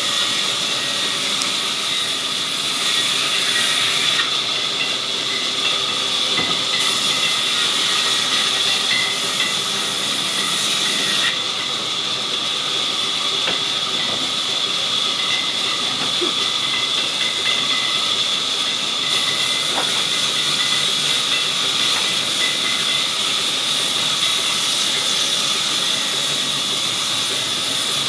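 Sawmill saw running steadily: a continuous high-pitched whine over a loud hiss, with no clear start or stop.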